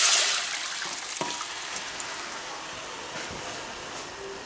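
Hot mustard oil sizzling as boiled split-pea dal is poured into the tempering. The loud sizzle dies down within the first second to a softer, steady hiss, with one light knock a little over a second in.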